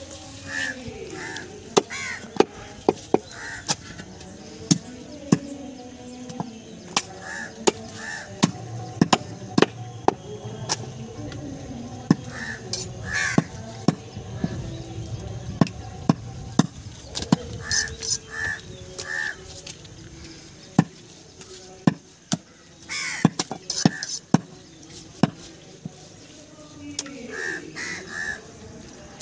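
Knife blade knocking on a wooden chopping stump while goat meat is cut, many sharp irregular knocks. Crows caw in short clusters of harsh calls throughout.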